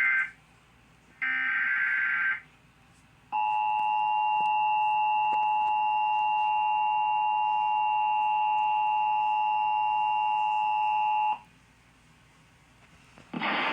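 Emergency Alert System broadcast tones for a flash flood warning. First come two short bursts of the digital SAME header, a harsh data screech about a second apart. Then the steady two-tone EAS attention signal holds for about eight seconds and cuts off sharply.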